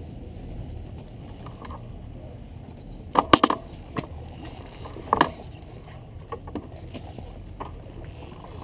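Steady low rumble of a moving motorcycle and the wind around it, broken by a few short sharp knocks about three and five seconds in.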